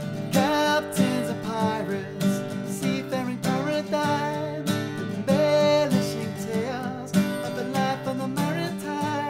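Background song: strummed acoustic guitar with a wavering lead melody over it.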